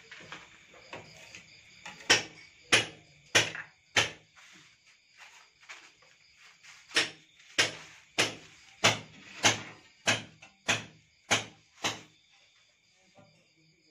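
Evenly spaced sharp knocks of a hand tool striking the brick wall, about one every 0.6 s: four blows, a pause, then nine more, as the wall is worked before it is tiled. Crickets trill steadily behind.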